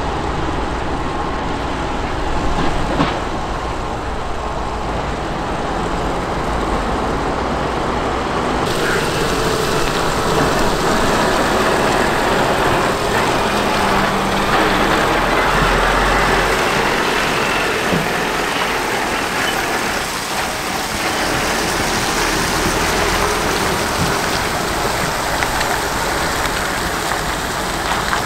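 Kobelco SK380SR excavator at work: a steady low rumble under a constant rushing hiss, which abruptly turns brighter about nine seconds in.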